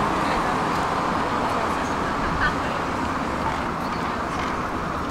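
Road traffic at a busy city junction: cars passing, a steady noise of engines and tyres that eases off slightly toward the end. A short high chirp comes about two and a half seconds in.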